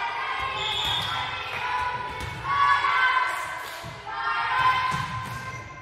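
High-pitched shouts and calls from volleyball players and spectators in a gym, coming in three bursts, with occasional thuds of the ball in the echoing hall.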